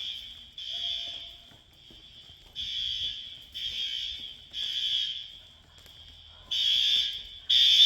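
Building fire alarm sounding in the three-pulse evacuation pattern: groups of three high-pitched horn blasts about a second apart, separated by a pause, over a fainter steady tone, with the last group louder. The firefighters think the alarm was set off by a broken, frozen water main, not by fire.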